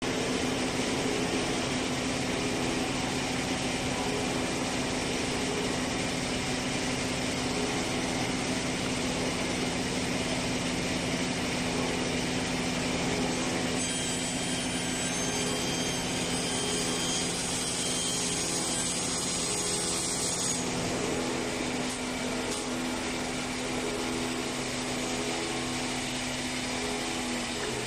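CNC 32TA automatic sliding panel saw running, its circular blade cutting a wood panel pushed along the sliding table: a steady machine hum with sawing noise. A higher whine joins about halfway through and stops suddenly about twenty seconds in.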